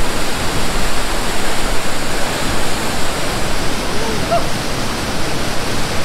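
Waterfall pouring over rock into a pool: a loud, steady rush of water.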